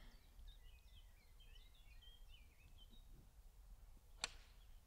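Faint birdsong, then a single sharp click about four seconds in: a golf iron striking the ball.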